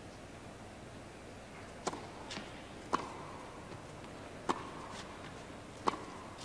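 Tennis ball struck back and forth with rackets in a rally: four sharp hits about a second and a half apart, each ringing briefly in the hall, over a quiet crowd.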